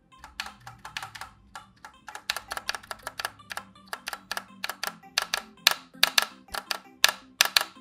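Typing on a TM680 mechanical keyboard fitted with linear Gateron Yellow switches and PBT keycaps. The keystrokes come in quick irregular runs and get faster and louder from about two seconds in. Quiet background music sits underneath.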